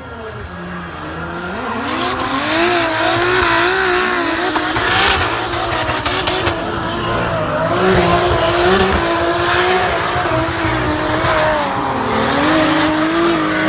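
Drift cars sliding through a hairpin with engines held at high revs, the pitch wavering up and down as the throttle is worked, and tyres squealing.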